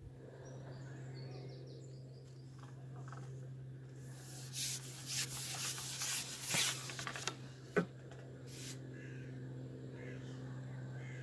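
Carbon fishing pole being shipped back and broken down by hand. Several seconds of rubbing and scraping as the sections slide through the hands are followed by a single sharp click, as a section comes apart.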